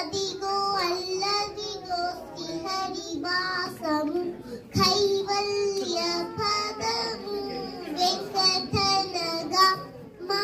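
A young girl singing solo, holding long notes.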